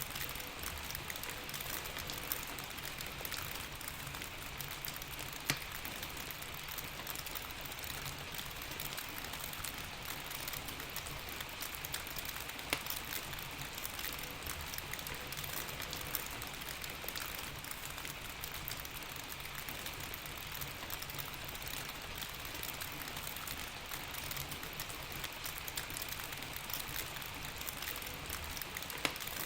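Steady rain hissing, with a log fire crackling and now and then a sharper pop, about five times.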